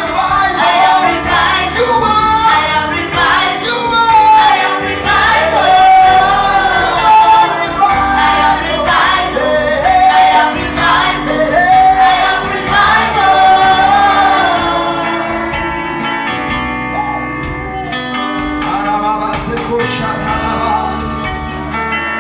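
Gospel worship song: voices singing over instrumental accompaniment. About fifteen seconds in, the singing drops away and the instruments carry on more quietly with held chords.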